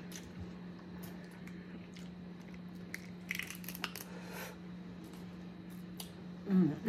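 Boiled crawfish being pulled apart and eaten by hand: scattered shell cracks, snaps and wet chewing, busiest about halfway through, over a steady low hum. Near the end comes a short loud vocal sound.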